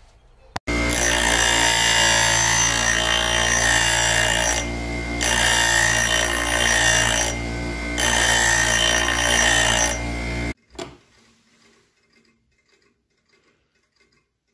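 Bench grinder running with a drill bit in a sharpening jig held against the wheel: a harsh grinding over a steady motor hum. It starts abruptly about a second in, eases off twice briefly, and cuts off sharply near the end, leaving a few faint clicks.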